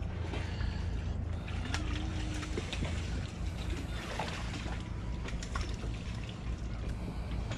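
Steady low rumble with faint trickling water and a few light clicks.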